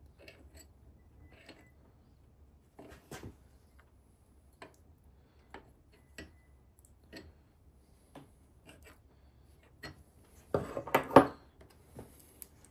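Scattered light clicks, taps and scrapes of hand work on a chainsaw's metal and plastic parts, with a louder burst of clattering about ten and a half seconds in.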